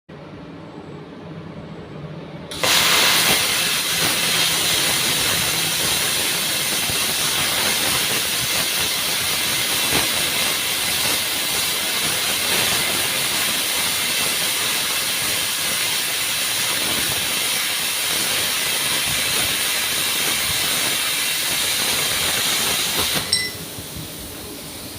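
Plasma cutter cutting 10 mm steel plate: the arc strikes suddenly a little over two seconds in and runs as a loud, steady hiss for about twenty seconds, then cuts off abruptly. A low hum is heard before the arc starts.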